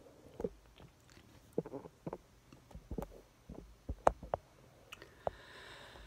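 Faint scattered clicks and small knocks, irregular and short, with a soft breath-like hiss near the end.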